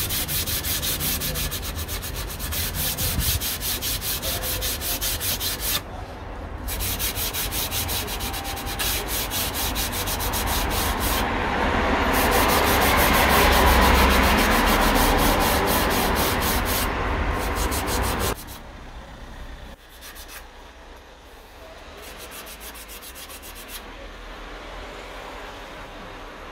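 Sandpaper rubbed by hand over a wooden chair in quick, even back-and-forth strokes, pausing briefly a few times. The strokes turn quieter and lighter after about eighteen seconds.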